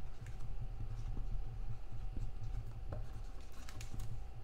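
Marker writing on a cardboard box, the tip scratching faintly with scattered small ticks.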